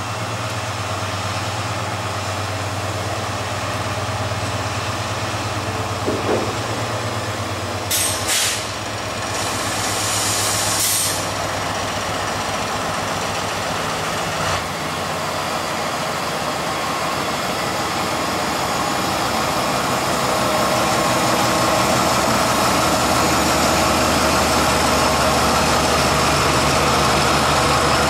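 Diesel freight locomotive's engine running steadily as the locomotive moves slowly closer, growing louder in the last third. Short hisses of air, like brake air being released, come about eight seconds in and again around ten to eleven seconds.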